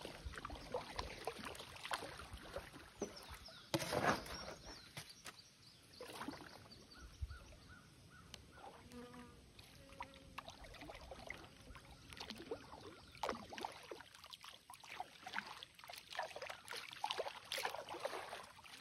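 A paddle blade sculling through shallow water beside an inflatable stand-up paddleboard, making faint, irregular swishes and small splashes as it is drawn back and forth, with a louder splash about four seconds in.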